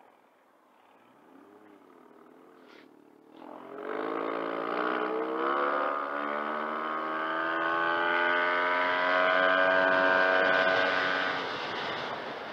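Yamaha TMAX 500 maxiscooter's parallel-twin engine pulling away under throttle: quiet at first, then about three and a half seconds in the engine note comes in sharply and climbs in pitch, holds steady at high revs for several seconds, and eases off near the end.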